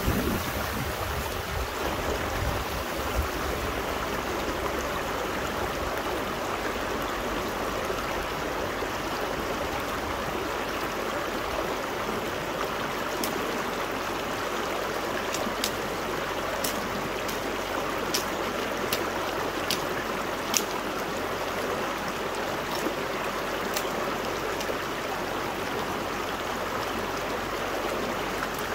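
River water flowing in a steady rush, with scattered sharp clicks in the second half.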